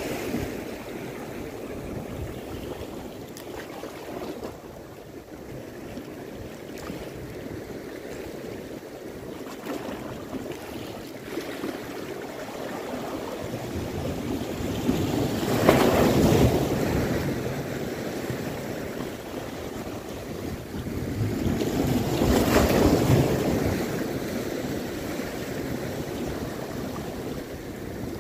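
Sea waves washing over shoreline rocks: a steady surf with two louder breaking waves, about halfway through and again near three-quarters of the way.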